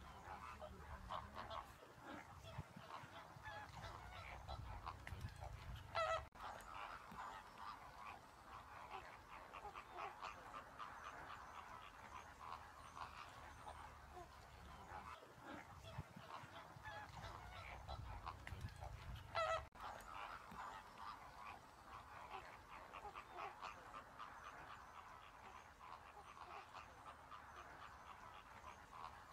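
A flock of greater flamingos calling: a continuous chatter of many short calls, with two louder calls standing out about six seconds in and again about twenty seconds in.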